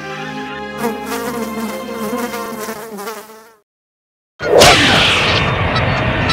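A fly buzzing, its pitch wavering, fading out about three and a half seconds in. After a moment of silence a loud, steady rushing noise cuts in suddenly.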